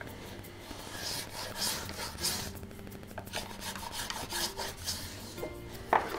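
Short rasping strokes of a hand tool scraping along the edge of a thin wooden boat plank, several in a row. A sharp knock just before the end is the loudest moment.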